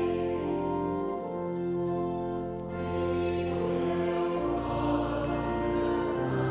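Offertory hymn: slow, steadily held chords with voices singing, the chords changing every second or so.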